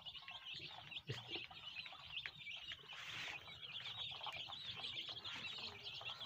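A large flock of young chicks peeping together in a continuous chorus of short, high chirps, with a brief rustle about three seconds in.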